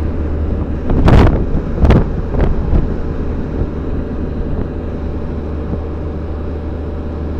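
Wind noise buffeting the microphone on a moving Can-Am Spyder RT Limited three-wheeler, over the steady low drone of the running machine. Three sharp gusts hit the microphone between one and two and a half seconds in, the first the loudest.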